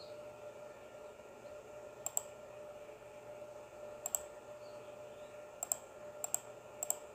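Computer mouse button clicked five times, each click a quick press-and-release pair, over a faint steady hum.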